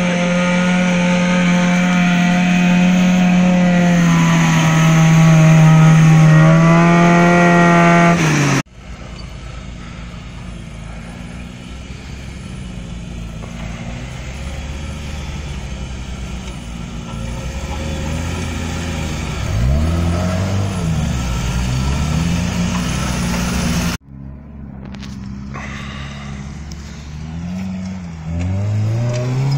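Off-road 4x4 SUV engines driving through mud: one engine held loud at high revs for about eight seconds, then it cuts off suddenly. A quieter engine follows, revving up and down, and near the end an engine revs up again.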